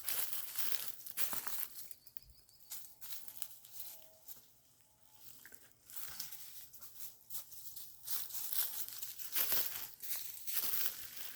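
Someone pushing through dense brush on foot: dry leaves and twigs crackling and crunching and branches scraping. It eases off for a few seconds about two seconds in, then picks up again.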